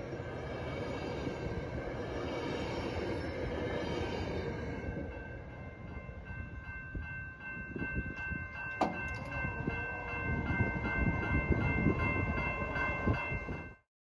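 Metrolink bilevel passenger cars rolling past a grade crossing, a dense rumble that thins out about five seconds in as the train clears. The grade-crossing warning bell then rings on with steady high tones, with some low thumps, until the sound cuts off suddenly near the end.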